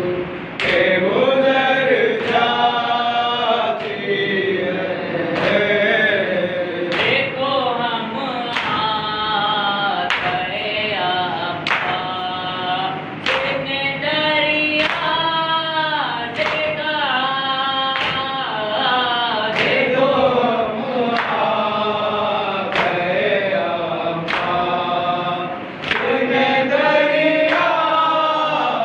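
Nauha, a Shia mourning chant, sung by a boy with other male voices joining in. Chest-beating (matam) slaps keep a steady beat about every second and a half.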